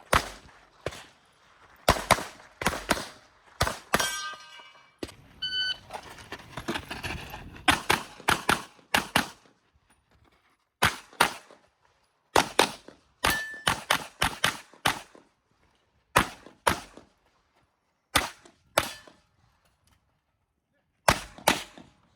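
Glock 26L 9mm pistol firing quickly, in pairs and short strings with pauses between them. A few hits ring briefly on steel targets.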